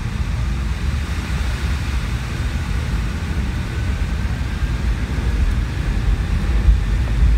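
Cabin sound of a McDonnell Douglas MD-90 airliner rolling on wet pavement: a steady low rumble from its rear-mounted IAE V2500 turbofans and the ground roll, with a faint engine whine that rises a little mid-way and the whole getting slightly louder near the end.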